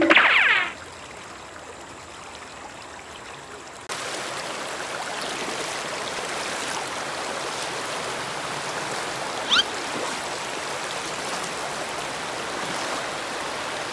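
Shallow rocky creek water rushing through a riffle, a steady hiss that gets louder about four seconds in, with one short high chirp about halfway through. Background music ends in the first second.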